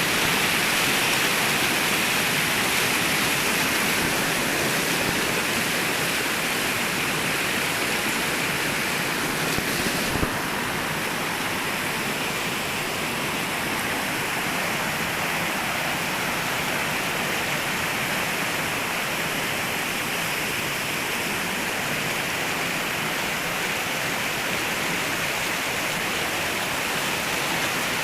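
Flowing water rushing steadily, like a stream or small waterfall. A brief click comes about ten seconds in, after which the rush is slightly quieter.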